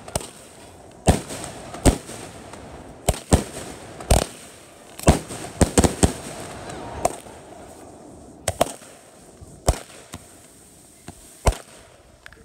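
Consumer aerial fireworks going off: a string of sharp bangs and reports at irregular intervals, roughly one a second, with a quick cluster of three about six seconds in, thinning out toward the end.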